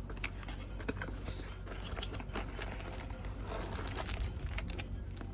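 Packaging crinkling and rustling in irregular small crackles as a new car-stereo box is unpacked, over a steady low hum.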